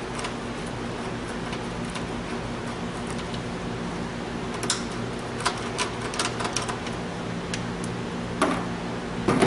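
Light metallic clicks and ticks as a nut driver works a steel nut off a threaded stud on a resistor tray, the clicks clustered around the middle with one more near the end, over a steady low hum.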